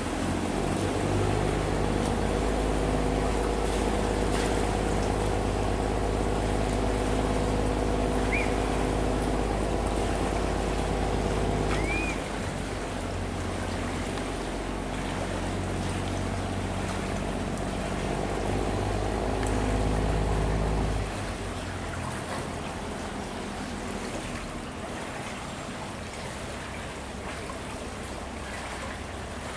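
Sand-laden barge's engine running hard as it pushes against a strong current, with rushing water throughout. The engine eases off about twelve seconds in, picks up again briefly, and drops away about two-thirds of the way through. Two short high chirps come in the middle.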